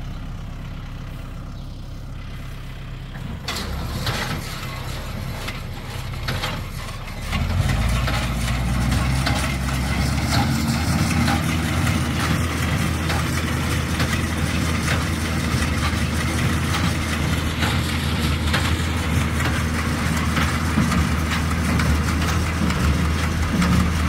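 Diesel engine of an LS XR4040 compact tractor running under load while it pulls and drives a New Holland 67 Hayliner square baler along a windrow, with clattering from the baler mechanism. The engine grows louder in steps about three and a half and seven and a half seconds in, then holds steady.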